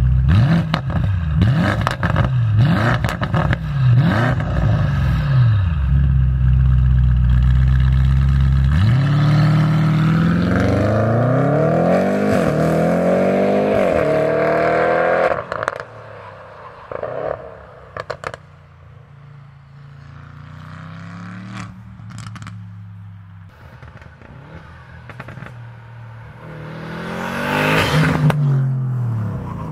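Audi RS7 twin-turbo V8 through a Mansory exhaust system: revved in quick blips with sharp cracks, then holding a steady deep note before pulling away hard, the pitch climbing and dropping through several upshifts. It then fades into the distance, and near the end it comes back past close by, the sound swelling and falling away.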